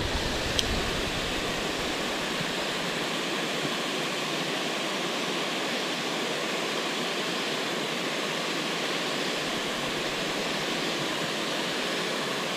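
Water pouring over a low-head river dam: a steady, even rush of falling water.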